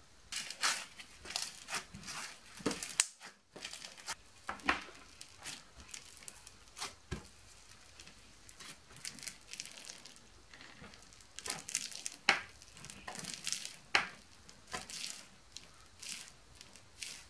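Granular, bead-filled slime being pressed by hand through a wire cooling rack, making a quick, irregular run of crackles, pops and squishes.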